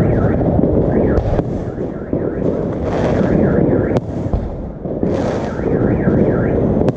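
New Year's Eve fireworks and firecrackers going off in a dense, continuous barrage of crackling and bangs, with a sharp bang about four seconds in as an aerial shell bursts. A warbling tone rises and falls repeatedly through it in short runs.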